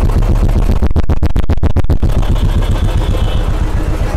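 Royal Enfield single-cylinder engine running just after a kick start, with a steady rhythmic beat that is clearest about a second in. It is quite noisy, freshly filled with new oil and left running so the oil circulates before the electric starter is tried.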